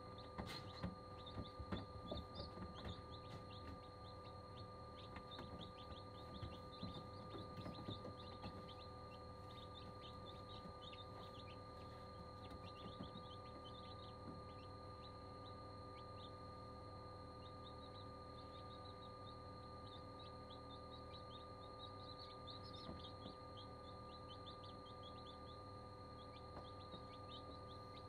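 Newly hatched chicks peeping: many short, high-pitched peeps in quick runs throughout, with a few soft knocks in the first several seconds. A steady hum runs underneath.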